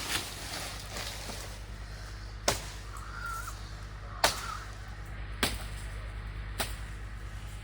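Four sharp cracks spaced about a second apart over a steady low rumble.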